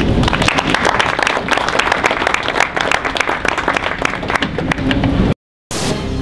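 A roomful of people applauding, many hands clapping at once. The applause cuts off suddenly about five seconds in, and after a brief silence music begins.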